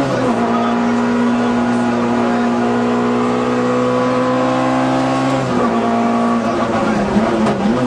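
Peugeot 106 A5K rally car's engine heard from inside the cockpit under hard acceleration. The revs drop at a gear change right at the start, then climb steadily for about five seconds. About five and a half seconds in they fall sharply, then rise and fall unevenly as the car slows and shifts down.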